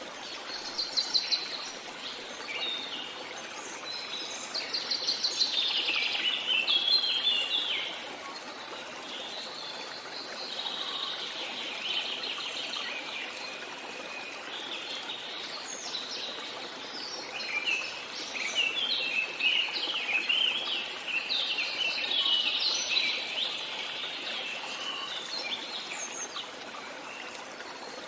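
Birdsong in repeated twittering phrases over the steady rush of a flowing stream. The song comes and goes, loudest a few seconds in and again in the second half.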